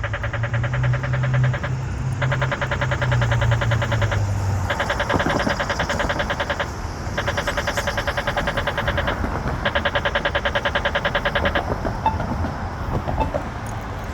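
Accessible pedestrian signal push button giving its rapid electronic ticking, in five runs of about two seconds each with short breaks between. The rapid tick is the walk-interval tone; a vehicle engine hums low under the first few seconds.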